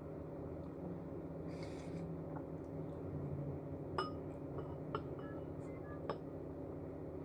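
Three light clinks of tableware, about a second apart in the second half, each with a brief ring, over a steady low hum.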